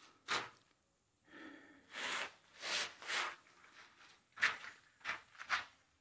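Footsteps scuffing on a gritty concrete floor: about seven short, unevenly spaced scrapes.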